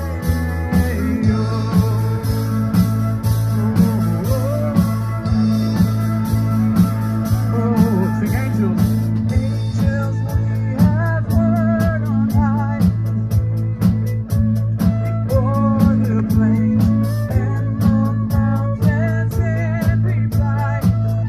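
Church band playing amplified music with a steady drum beat, a held bass line and a singer.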